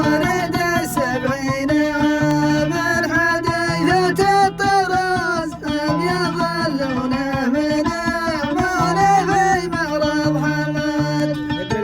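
Middle Eastern song: a man sings a melodic vocal line over a steady plucked-string and bass accompaniment.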